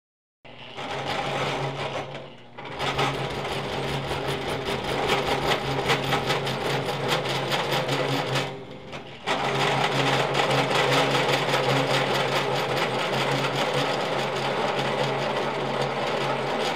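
Drill press boring a large hole through a cold rolled steel bar with a large drill bit, lubricated with cutting oil: a steady motor hum under a dense, fast grinding of the cutting edges, easing off twice briefly. The cut runs smoothly, with much less chatter after stepping up through intermediate bit sizes.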